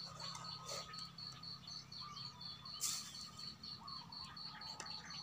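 Faint insect chirping, a high pulsing note about four times a second. About three seconds in comes a short, loud hiss as a spoonful of brown sugar is tipped into a plastic funnel.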